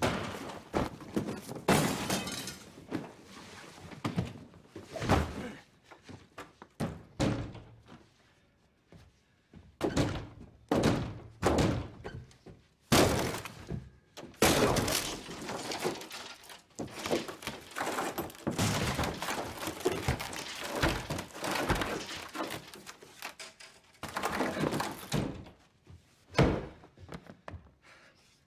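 A long series of loud thuds and crashes with breaking sounds, coming in clusters with short quieter gaps between them.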